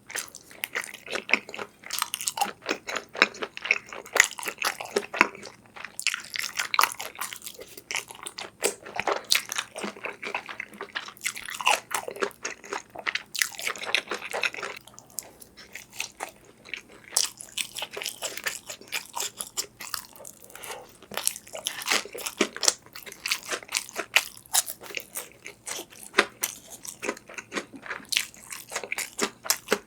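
Close-miked eating: bites, crunching and wet chewing, a dense irregular run of small crackles and clicks.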